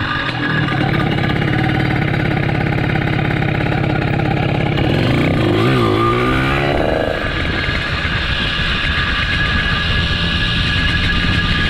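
Small 79cc motorized-bicycle engine running under way. Its pitch wavers up and down about halfway through, then it settles into steadier running.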